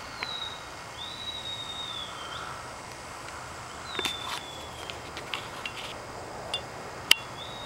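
Long, high whistled notes, each held about a second and dipping slightly in pitch at the end: three of them, and a fourth starting at the very end. Scattered light clicks sound between them, with one sharp click near the end.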